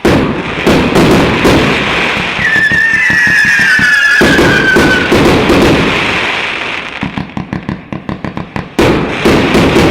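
A 200-shot fireworks cake of 32 mm (1.25-inch) calibre firing: rapid volleys of launches and shell bursts, loud throughout. From about two and a half to five seconds in, a whistling tone falls slowly in pitch over the bangs.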